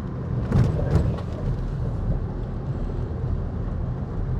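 Car driving on a wet road: a steady low rumble of road and engine noise, with two short knocks about half a second and a second in.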